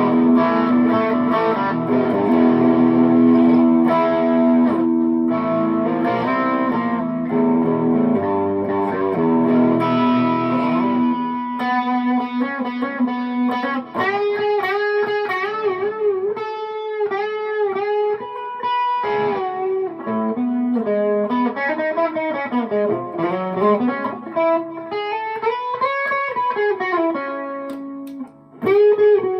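Harley Benton SC-Deluxe electric guitar played through a Tone City King of Blues overdrive pedal, with the B engine's gain at maximum and the guitar's volume turned down a little. Distorted chords ring for the first ten seconds or so, then single-note lead lines follow with string bends and vibrato.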